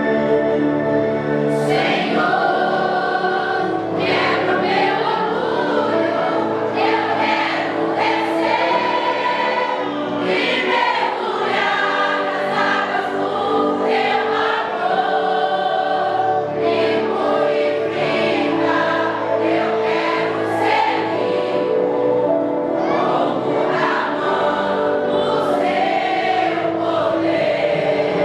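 A vocal group singing a gospel song in harmony over instrumental accompaniment.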